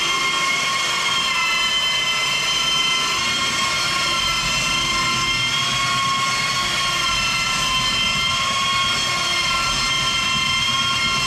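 Bauer cordless belt sander running steadily while sanding a wooden floor: a constant high motor-and-belt whine whose pitch wavers slightly as the load changes.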